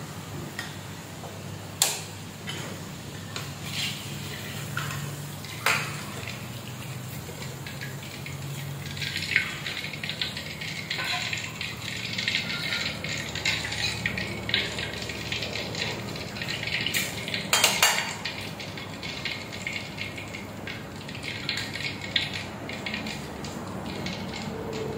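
Metal spatula and perforated skimmer clanking and scraping against a wok while cassava pieces are lifted out of hot frying oil, with a few sharp clanks about two seconds in, near six seconds and a cluster around seventeen seconds. Underneath, the oil sizzles, growing stronger from about nine seconds in.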